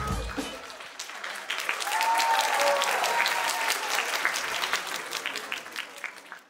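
The dance track's last beat stops, then an audience claps and a voice calls out in a cheer, the applause fading out near the end.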